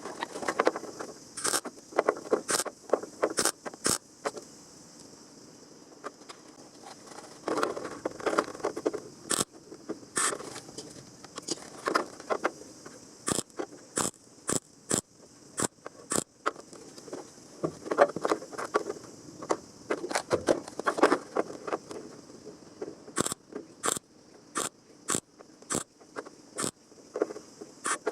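Irregular hand scraping with sharp clicks, coming in clusters with short pauses, over a faint steady high hiss.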